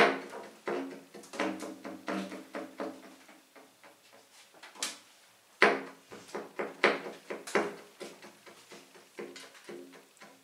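Double basses plucked and knocked in sparse free improvisation. Irregular sharp plucks and taps each leave a short low ring; the loudest come right at the start and about five and a half seconds in.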